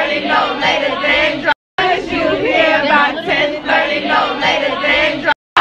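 A crowd of partygoers singing and shouting together, many voices at once. The sound cuts out briefly twice.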